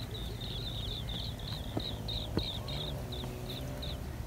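Insect chirping outdoors: short high chirps repeated about four or five times a second, spacing out and thinning toward the end, over a steady low rumble. Two faint clicks come about two seconds in.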